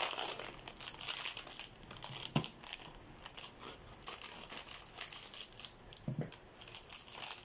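Plastic wrapping crinkling and crackling in irregular bursts as hands pull it open and unwrap a small parcel.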